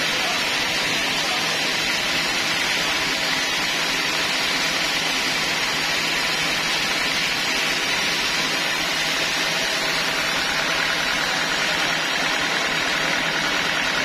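Sawmill band saw running steadily while cutting through a teak log: an even, unbroken sawing hiss over a constant machine hum.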